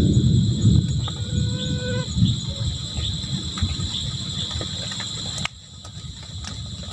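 Cattle mooing, with a steady high insect trill behind them; the sound drops away abruptly about five and a half seconds in.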